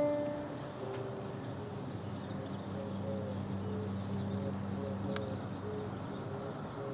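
Insects chirping in a steady high pulse, several chirps a second, like crickets. A faint low hum comes in about two seconds in and fades near the end.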